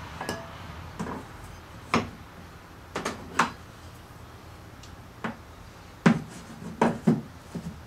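Iron bench holdfasts and clamps being set on a wooden workbench: about ten irregular sharp knocks and clicks of metal against wood, some in quick pairs.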